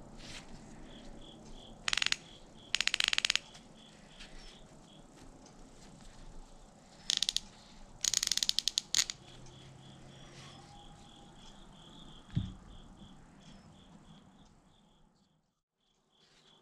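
Restored WW2-era Plomb 3/8-inch drive ratchet worked back and forth by hand, its pawl clicking in four short, rapid runs.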